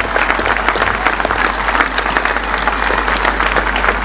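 Large crowd applauding: dense, sustained clapping with a steady low hum underneath.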